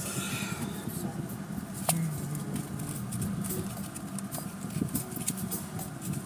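Inside a moving car: a steady low hum of engine and tyres, with many light, irregular clicks and rattles over it.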